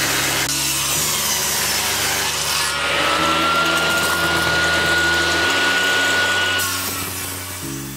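Table saw ripping a wooden board lengthwise, the blade cutting with a dense hiss. A thin steady whine joins about three seconds in and fades near the end.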